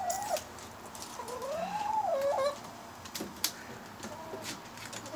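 Backyard hens calling: a short drawn-out call at the start and a longer one that rises and falls about two seconds in. A few sharp snaps come from rubber bands being stretched around a watermelon.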